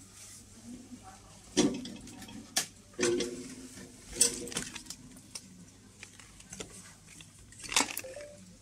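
Pet leashes and harnesses being handled on a hanging display, their metal snap hooks and clips knocking together in a handful of sharp clicks.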